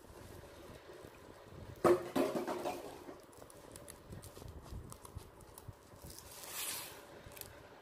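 Ribbon rustling and crinkling as hands fold and tuck it, with scattered light clicks and a soft sliding hiss near the end. A brief, louder sound about two seconds in fades over about a second.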